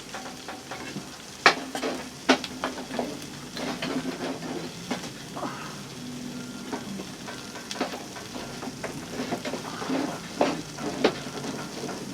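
An egg frying in a pan, sizzling steadily, with scattered sharp clicks and knocks throughout.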